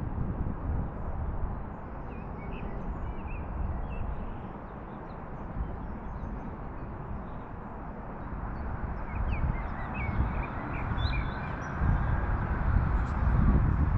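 Open-air ambience: a low rumble of wind on the microphone, stronger near the start and the end, with short high bird chirps a few seconds in and again in the second half.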